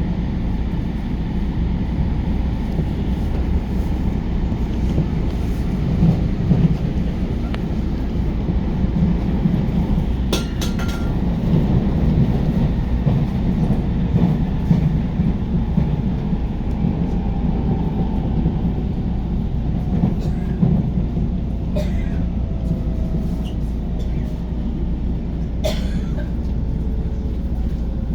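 Cabin noise of a JR New Rapid commuter train running on the line: a steady low rumble of wheels on rail. A few sharp clicks come through about a third of the way in and again near the end.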